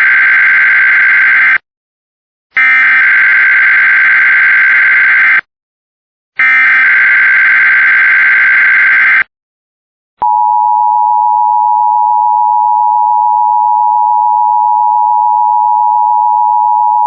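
Emergency Alert System test signal. The coded SAME header data bursts come three times, each about three seconds long with about a second of silence between them. After a short pause a steady attention tone begins about ten seconds in and holds.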